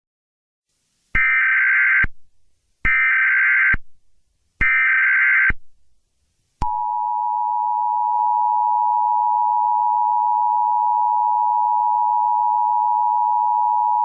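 Emergency Alert System broadcast tones: three short bursts of screeching SAME header data, then the steady two-tone EAS attention signal starting about six and a half seconds in and holding unbroken.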